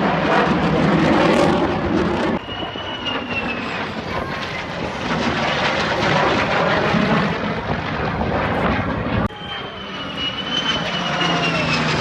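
Airplane engine noise, a dense rumble broken by abrupt cuts about two seconds in and again about nine seconds in. A thin, wavering whistle rides above the rumble in the later parts.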